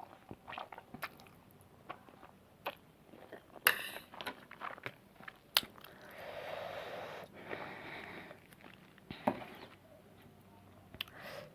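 Close-up sounds of a person eating noodles: scattered wet clicks and smacks of chewing, with a longer noisy stretch of a couple of seconds just past the middle.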